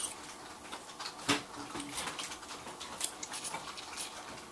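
Small scattered clicks, taps and rustles of toddlers eating spaghetti noodles by hand from a plastic tub, the strongest a little over a second in.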